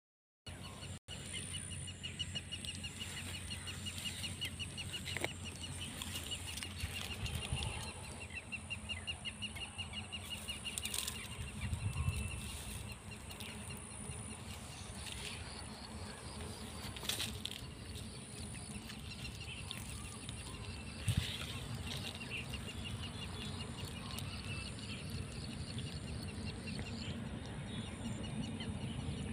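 Outdoor ambience with a rapid, repeating high chirping trill that comes and goes, over a steady low rumble on the phone microphone, with a few faint clicks.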